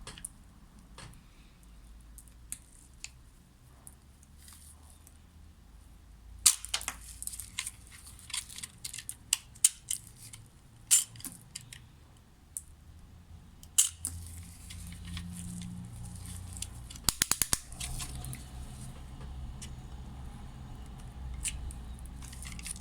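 Knife cutting through bar soap, with sharp crisp cracks and scattered ticks as the blade slices and pieces break off. A quick run of clicks comes about three-quarters of the way through, and a low hum sets in past the middle.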